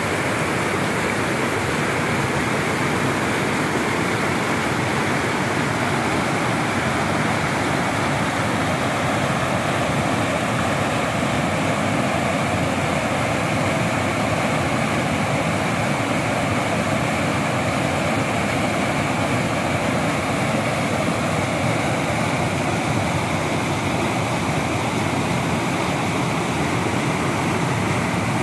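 River rapids rushing over rocks: a steady, even rush of whitewater.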